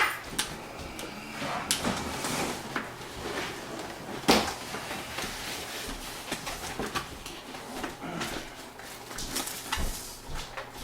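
A cardboard motherboard box and its packaging being handled: soft rustling and scraping broken by a few sharp knocks, the loudest about four seconds in.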